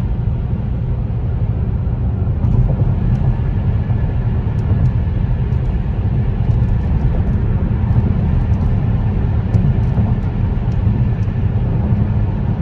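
A car driving at road speed, heard from inside the cabin: a steady, loud, low rumble of tyres and engine.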